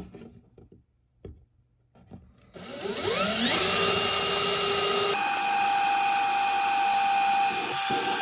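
Electric drill starting up about two and a half seconds in, its whine rising to speed, then running steadily as it drills into the phone's plastic kickstand. A few faint handling clicks come before it starts.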